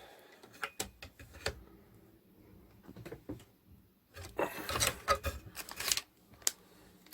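Scattered light clicks and knocks of small objects being handled on a workbench, with a denser cluster of handling noise about four to six seconds in.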